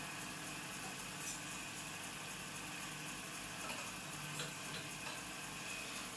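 Metal-spinning lathe running steadily with an even hum, with a few faint metal clicks as the steel spinning tool is moved on the tool rest.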